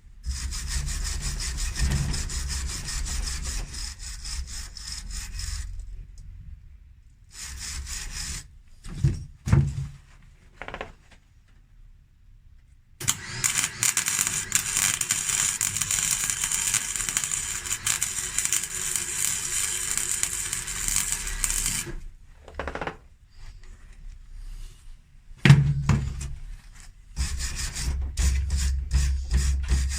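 Metal being scrubbed clean with repeated rough strokes, stopping and starting, then a steady crackling hiss of arc welding for about nine seconds in the middle as a second weld run goes onto a repaired winch clutch lever, followed by more scrubbing strokes near the end.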